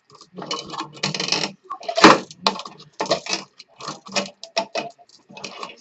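Tool prying at the clipped-on heat sink of an Xbox 360 motherboard: a rapid run of metal clicks and scrapes, with one sharp crack about two seconds in.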